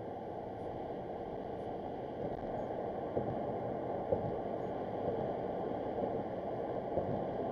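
Steady road and tyre noise of a car at highway speed, heard inside the cabin. It grows slightly louder about two seconds in as the car rolls onto the concrete bridge deck, with a few light thumps.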